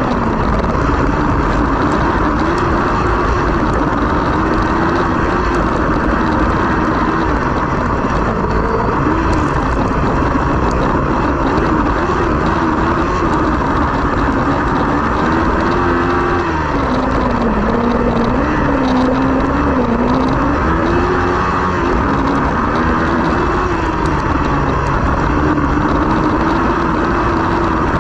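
Autocross buggy's Kawasaki ER-6 parallel-twin engine running hard at race pace, heard from the cockpit. Its pitch rises and falls as the throttle is worked through the corners, dipping lowest a little past halfway, over a constant rush of wind and tyres on dirt.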